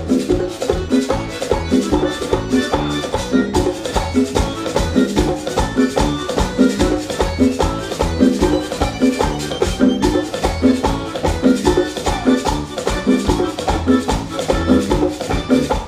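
Live merengue played by a band: a button accordion carries the melody over congas, electric bass guitar and a fast, even percussion beat.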